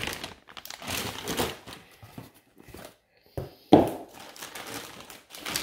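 Plastic bags crinkling as packaged parts are handled. A single sharp thump comes about three and a half seconds in, followed by more rustling among the packaging in a cardboard box.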